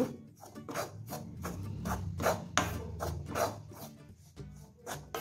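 Wooden spatula stirring and scraping roasted wheat flour around a metal kadai: a quick run of rasping strokes, about three a second.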